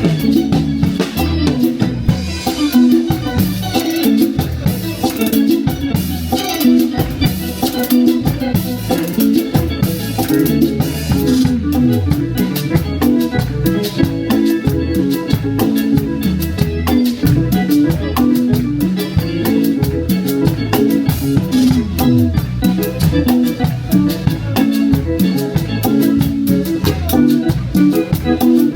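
Live band playing an instrumental passage of an upbeat Latin-style song, with a steady drum beat and bass and no singing.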